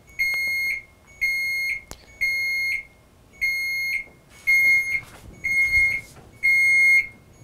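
Segway P65 electric scooter's turn-signal beeper: a high electronic beep about once a second, each lasting about half a second, repeating evenly while the indicator is switched on.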